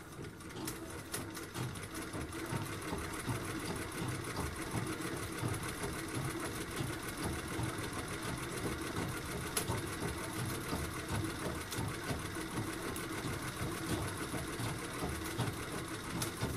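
Singer 201-2 sewing machine, converted to treadle drive, stitching steadily through fabric on its first test stitches. It makes an even, rapid mechanical clatter that starts at once and stops suddenly near the end.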